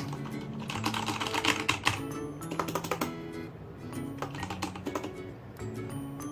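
Typing on a Corsair Strafe RGB mechanical keyboard with Cherry MX Brown switches: several bursts of rapid key clicks with short pauses between them, over background music.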